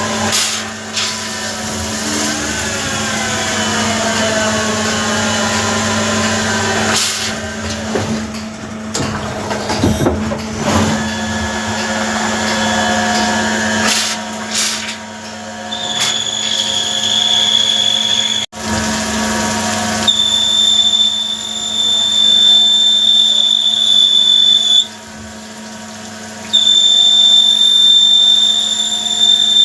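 Metalworking machine tool running with a steady hum. Its pitch glides downward over the first several seconds, and several sharp knocks follow. From about halfway a high, steady whine sets in, stops for a couple of seconds near the end, then returns.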